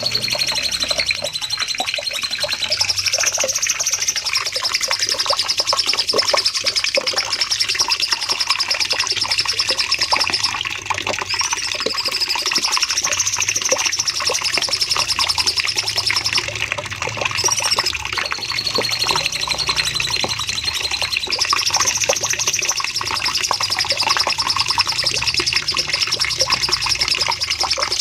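Cucak cungkok songbird singing one long, unbroken rapid trill that steps up and down in pitch every few seconds: the long 'shooting' song run used as a master recording to train songbirds.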